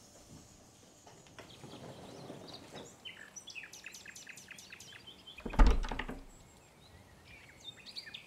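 Wooden house door being unlocked and opened, with small clicks of the lock, then one loud thunk just past halfway as the door comes free. Birds are chirping at the same time.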